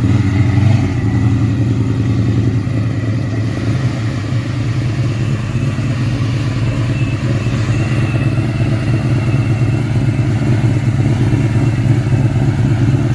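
Car engine running at a steady speed, a loud, low, even drone that barely changes.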